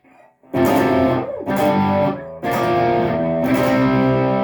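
Electric guitar played through a Fender Tone Master Twin Reverb amp with its reverb switched off: four strummed chords, each left to ring before the next.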